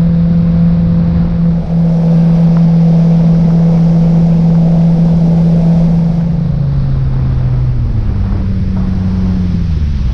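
Outboard motor driving a boat at speed, with water and wind rushing past. The engine note is steady at first, then drops in pitch about two-thirds of the way through and falls again near the end.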